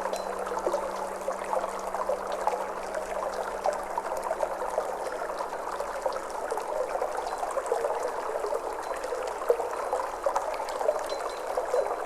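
Flowing water, a steady babbling stream with many small splashes and trickles. Underneath it runs a faint, low, steady hum.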